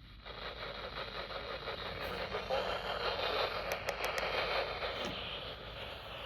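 Static hiss from a weather radio receiver on a weak NOAA Weather Radio signal, the automated announcer's voice barely showing through the noise.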